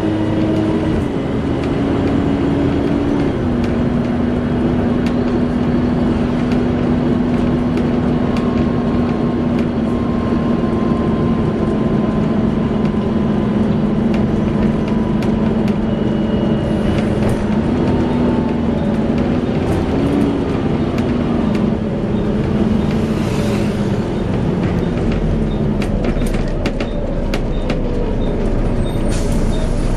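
Volvo B7TL bus running, with a strong steady whine that steps down in pitch twice in the first few seconds, then wavers and slides lower about two thirds of the way in, over a constant mechanical din; the hoover-like whine is typical of its engine cooling fan. Scattered light clicks near the end.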